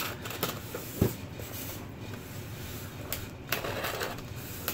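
Small blade cutting packing tape along a cardboard box seam, with scraping and rustling of the cardboard and a sharp knock about a second in.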